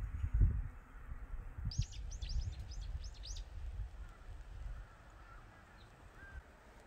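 A small bird gives a quick run of about six high, falling chirps about two seconds in. Low rumbling thumps come at the start, over a faint outdoor background.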